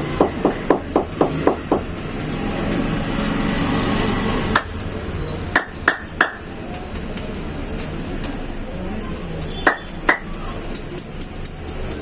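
Rapid hand strikes of a percussive head massage, about four a second, ending around two seconds in. A few single sharp cracks follow. About eight seconds in a loud high-pitched whine starts, pulsing quickly, and continues.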